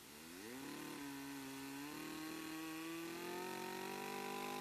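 IEL Super Twin chainsaw's two-stroke engine revving up from idle in about the first second, then running at full throttle under load as it cuts into a large log. Its pitch climbs slowly through the cut.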